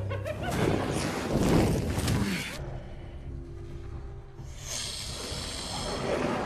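Viperwolves snarling and hissing in a film soundtrack, with a man breathing hard. The snarls come in rough bursts over the first two seconds or so, then a quieter lull, then a high, steady hiss from about five seconds in.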